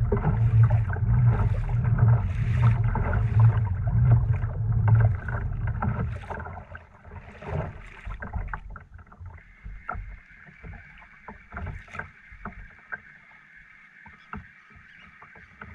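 Handling and water sounds from a small fishing kayak: rhythmic low thumps for about the first six seconds, then a quieter stretch of scattered clicks with a faint steady high hum.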